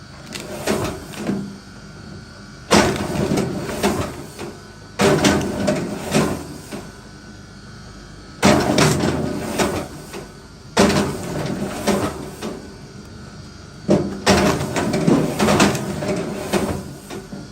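Wood being split: five heavy strikes, two to three seconds apart, each followed by a short clatter.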